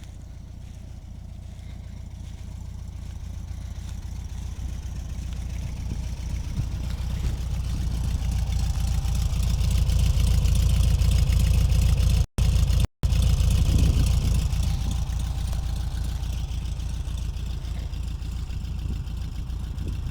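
1973 Volkswagen Beetle 1300's air-cooled flat-four engine running steadily, growing louder over the first half and easing off slightly after. The sound cuts out twice briefly around the middle.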